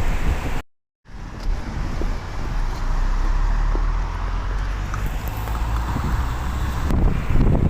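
Steady low rumble of road traffic or a car running. The sound cuts out to silence for a moment about a second in, then resumes.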